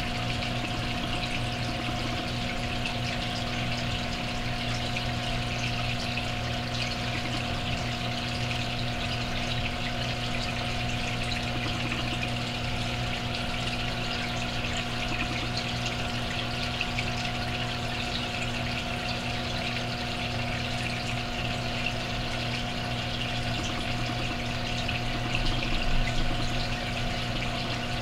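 Aquarium filter running: a steady electric motor hum under the constant hiss of moving water, with a brief slight swell near the end.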